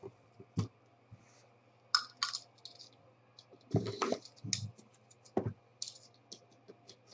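A shrink-wrapped cardboard trading-card box handled in the hands: scattered clicks and crinkles of the plastic wrap and the box, with a denser burst about four seconds in.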